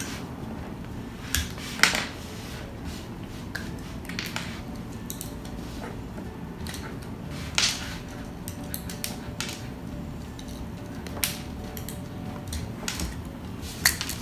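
Thin shells of Hatchimals CollEGGtibles toy eggs cracking and being picked apart by a child's fingers: scattered sharp cracks and small clicks, the clearest about two seconds in and again about halfway through.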